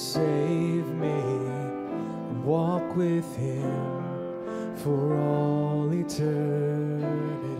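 Slow worship song: a man sings held, wavering notes to his own acoustic guitar.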